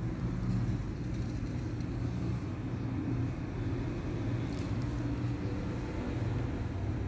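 Steady low rumble of road traffic, with a few faint clicks about four and a half seconds in.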